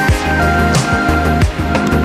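Music with a steady beat and deep bass.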